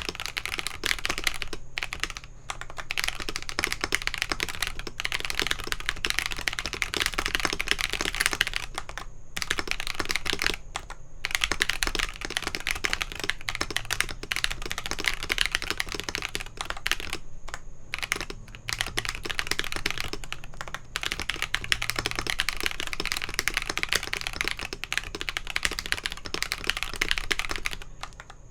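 Fast continuous typing on a gasket-mounted aluminium-plate mechanical keyboard with lubed Akko Radiant Red linear switches, a dense run of keystroke clacks broken by a few short pauses.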